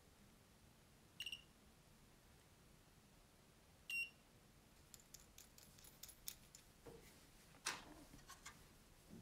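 Portable 18650 spot welder's board buzzer giving two short, high beeps about three seconds apart, set off as the wires bypassing its power button are touched together. Then light clicks and a knock from handling the 3D-printed plastic case.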